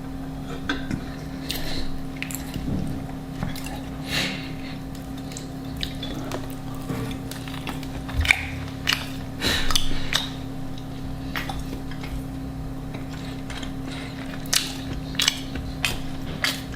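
Close-miked eating sounds: irregular bites, chewing and small wet mouth noises, with occasional clinks of cutlery on a plate, over a steady low hum.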